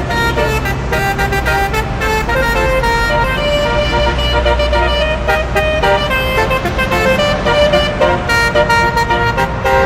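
Multi-tone 'telolet' bus horn playing a quick tune of shifting notes over the low rumble of a running engine.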